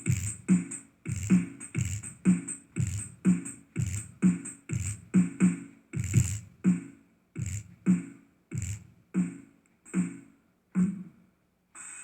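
PIS-net speaker woofer playing bass-heavy beat music: a deep kick drum about twice a second with a higher tick on each beat. The beat slows and stops shortly before the end.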